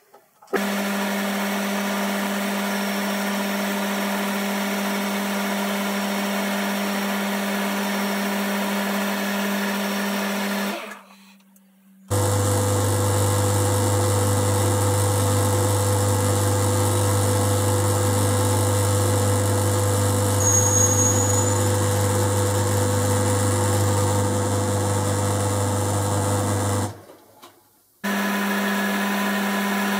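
Boxford lathe running steadily with its four-jaw chuck spinning a brass bar as the bush is reamed and turned, a constant machine hum. The sound cuts out twice for about a second, about 11 s in and near the end, and the middle stretch carries a deeper hum than the stretches either side.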